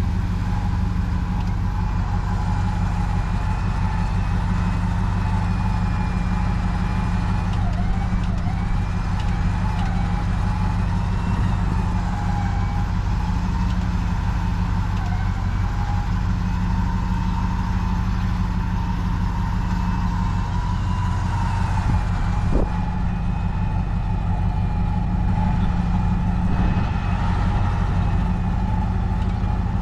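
Vehicle engine running steadily, with a thin whine above it that wavers slowly up and down in pitch.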